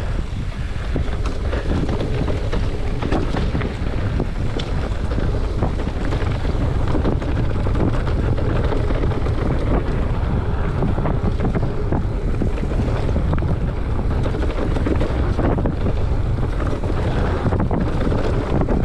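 Wind rushing over a handlebar-mounted action camera's microphone as a mountain bike rolls fast down a dry dirt trail. Tyre noise on dirt and leaves runs under it, along with frequent small rattles and knocks from the bike over bumps.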